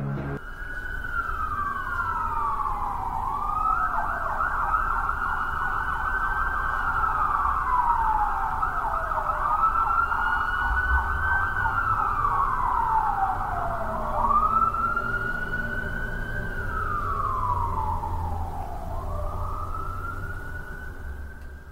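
Wailing emergency-vehicle siren, each cycle rising quickly, holding high, then falling slowly, repeating about every five seconds, over a low rumble.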